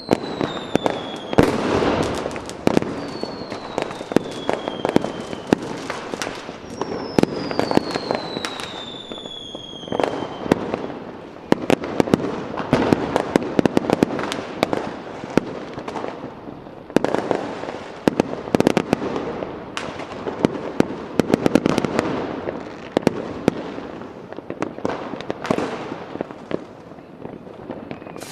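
Fireworks going off in a dense, continuous barrage of bangs and crackles. In the first ten seconds several whistling fireworks sound, each whistle falling in pitch.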